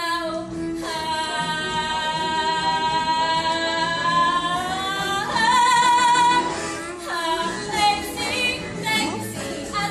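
A woman's solo singing voice holds one long note for about four seconds, swells into a wavering vibrato, then sings shorter phrases, over a musical-theatre backing track.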